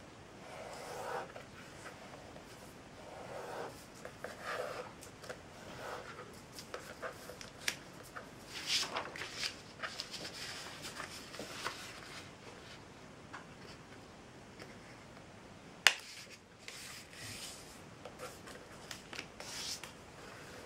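A sheet of paper being folded by hand on a tabletop: intermittent rustling and rubbing as fingers press and run along the creases. There is a single sharp click about sixteen seconds in.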